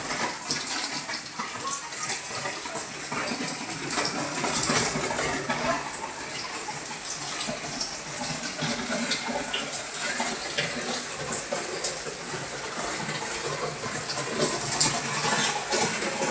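Steady splashing of water, a continuous hiss dotted with many small crackles and drips.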